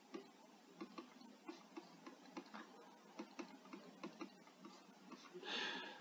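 Faint, irregular clicks and taps of a stylus on a pen tablet during handwriting, a few a second, with a short soft hiss about five and a half seconds in.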